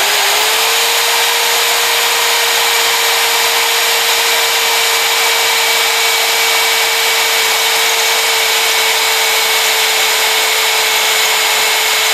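Corded electric drill running at steady full speed, its bit boring into the metal frame of a walk-behind mower. A steady motor whine comes up to pitch in the first moment and then holds, over the hiss of the bit grinding the metal.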